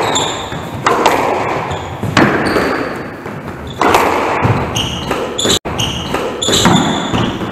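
Squash rally: the ball cracks off rackets and the court walls about once a second, each hit echoing in the enclosed court, with short high squeaks of shoes on the wooden floor between the hits.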